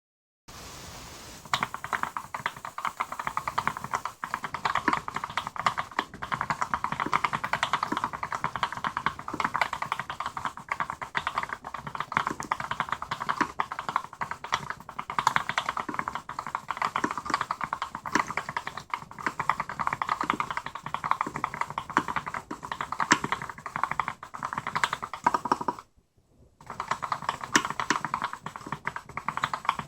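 B.face custom mechanical keyboard with lubed Gateron Black linear switches on a stainless-steel (SUS) plate, typed on quickly and continuously, with a brief pause near the end.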